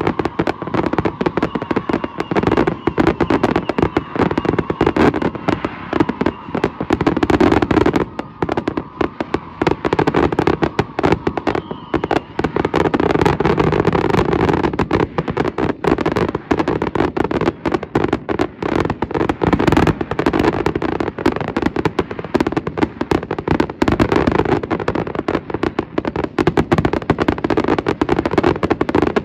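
Aerial fireworks: a continuous, rapid barrage of overlapping shell bursts and crackling, with no break.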